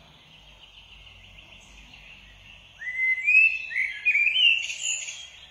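A recording of a Eurasian blackbird singing. After a faint hiss, fluty warbling phrases of short notes gliding up and down begin about three seconds in.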